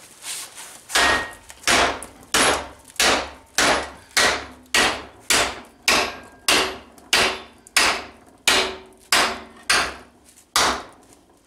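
Hammer blows on a TIG-welded aluminum test plate clamped in a bench vise, beating it over in a bend test of the weld. It is a steady run of about sixteen sharp strikes, roughly one every 0.6 seconds, each ringing briefly.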